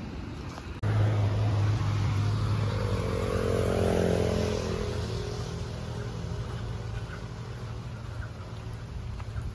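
A motor vehicle's engine running, a steady low hum with overtones that grows louder to a peak about four seconds in and then fades.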